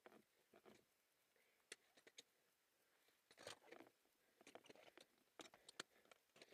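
Scattered clicks, scuffs and scrapes of a climber's boots, gloves and gear against rock, heard close on a helmet camera, with a longer scrape about halfway through and a quick run of clicks near the end.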